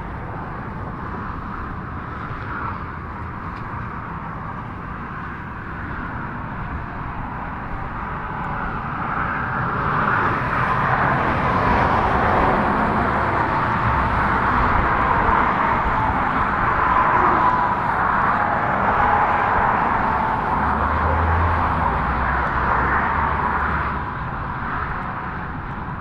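Highway traffic: a steady hiss of tyres and engines that swells from about a third of the way in, stays loud for about fifteen seconds, then eases near the end.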